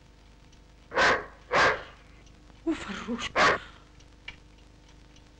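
A German Shepherd dog barking: two barks about half a second apart, then a quick run of three or four more barks a second later.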